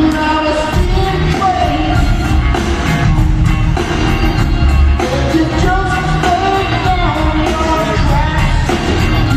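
Live rock band playing with a lead vocal and a steady drum beat, heard in a large arena.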